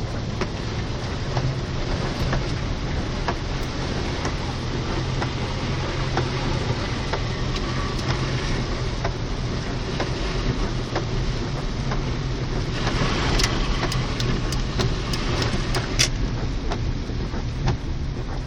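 Car driving through a flooded street in heavy rain, heard from inside the cabin: a steady low engine and road hum under a constant rush of water and rain, with scattered sharp taps. The rushing grows louder for a few seconds about two-thirds of the way through.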